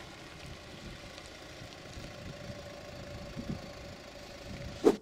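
Land Rover Freelander 2's engine running steadily at low speed, with a brief louder sound just before the end.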